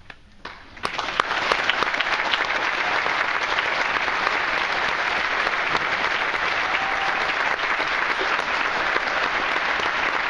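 Audience applauding: a few scattered claps at first, filling out within a second into steady applause.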